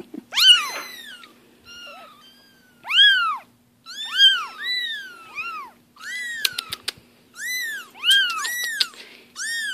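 Four-week-old Bengal kittens mewing again and again in high-pitched cries, each rising then falling in pitch, several voices overlapping. These are kittens away from their mother and calling for her.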